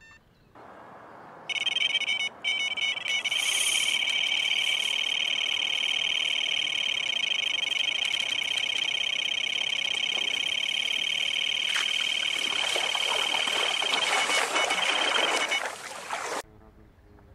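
Electronic carp bite alarm sounding a continuous high tone as a fish runs with the bait and pulls line off the reel, with one brief break near the start. A rushing noise swells under the tone near the end, and the whole sound cuts off suddenly.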